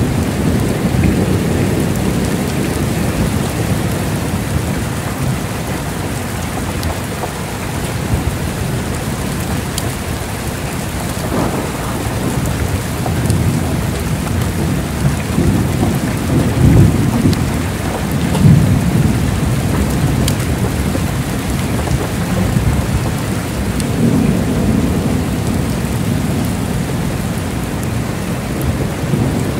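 Heavy rain falling steadily, with low rolling thunder that swells about halfway through and again near the end.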